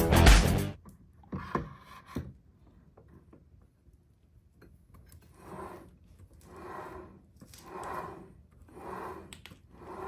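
Background music cuts off, then a couple of light knocks. From about halfway in come five even rubbing strokes about a second apart, like scraping or scrubbing by hand.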